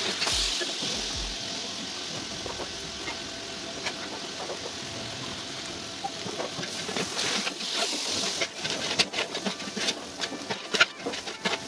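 Meat and onions frying in oil in a large aluminium pot: a steady sizzle, which flares briefly when tomato puree is poured in about halfway. In the second half a spoon clicks and scrapes against the pot as the mixture is stirred.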